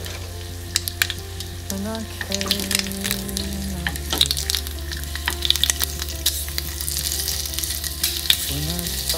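Bacon strips sizzling and crackling in a non-stick frying pan, with many sharp pops throughout. Chopsticks scrape lightly as they turn the strips.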